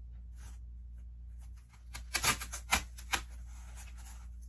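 Hands handling a cluster of plastic Easter eggs on sticks: a few light clicks and rustles about two seconds in, over a steady low hum.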